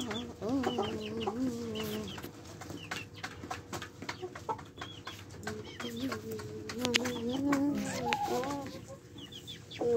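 Chickens clucking in long wavering calls, about a second in and again around seven seconds, with short high peeps between them.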